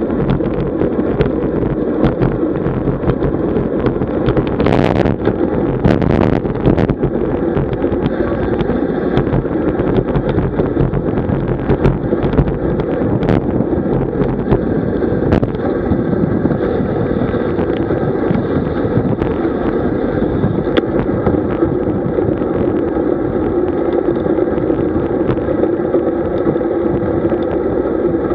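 Steady rush of wind over a bike-mounted camera's microphone while riding a road bike, with a few sharp knocks in the first half.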